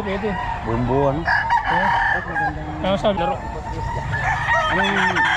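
Roosters crowing, with one long held crow starting about a second in and further crows near the end.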